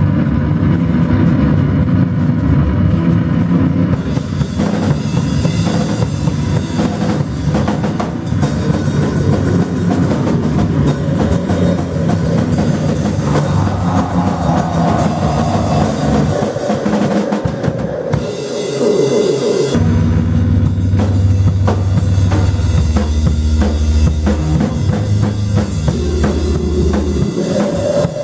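A live band playing loud music, with a pounding drum kit of bass drum, snare and cymbals. Partway through, the heavy bass drops out for a few seconds, then comes back in.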